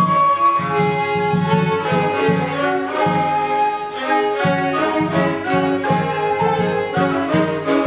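Baroque string ensemble playing: violins carry the upper melody over a bowed bass viol keeping a steady, pulsing bass line.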